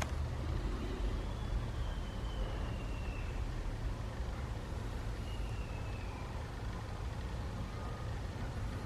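Steady low rumble with an even hiss over it, like the background noise of a running vehicle or nearby traffic.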